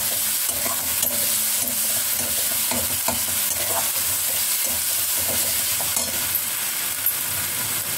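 Chopped onion, green chilli, garlic and ginger frying in oil in a metal kadai, sizzling steadily, while a steel spatula stirs and scrapes against the pan with occasional light clinks.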